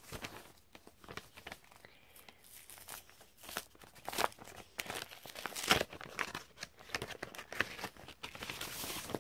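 Paper envelope being torn open and handled: irregular tearing and crinkling rustles of paper, some louder than others.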